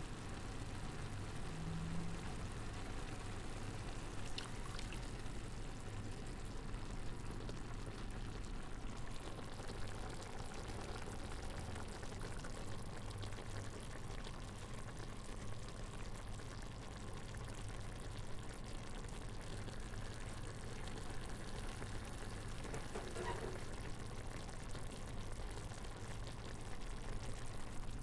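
Onions sautéing in a pan: a steady sizzle with small crackles and spits, even in level throughout.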